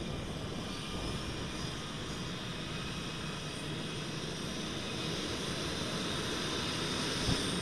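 HondaJet's twin over-the-wing turbofan engines running on the ground: a steady high whine over a loud rush of jet noise, which cuts off abruptly at the end.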